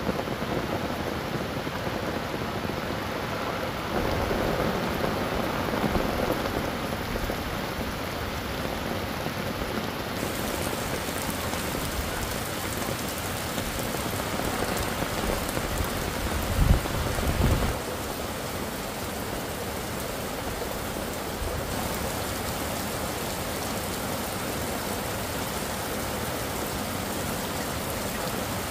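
Steady rain falling, an even hiss, with a brief low rumble a little past the middle.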